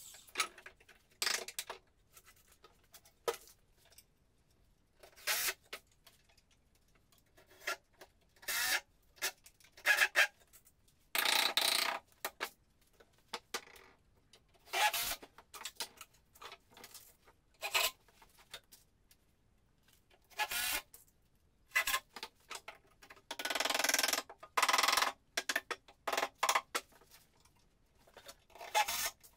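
Irregular short scrapes and knocks of hand work, a couple of them lasting about a second, with quiet gaps between.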